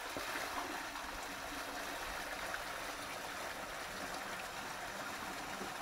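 Water running and trickling steadily through an exposed field drain tile at the bottom of an excavation.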